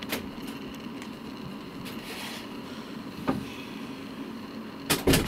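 Steady low hum with a few sharp knocks, the loudest two close together near the end.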